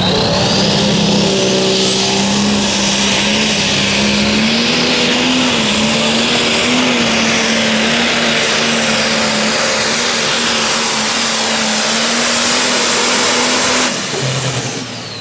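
Pulling tractor's engine running flat out under load down the track, with a high whistle that climbs over the first couple of seconds and then holds. About fourteen seconds in the engine is shut down and the whistle falls away.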